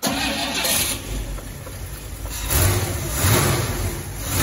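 1958 Pontiac Bonneville V8 on a cold start: it fires suddenly right at the start and then runs, swelling louder a few times.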